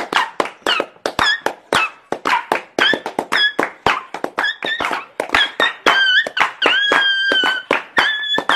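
A fast, busy beat of sharp taps and knocks with squeaky, whistle-like tones over it that slide in pitch, one held for about a second near the end.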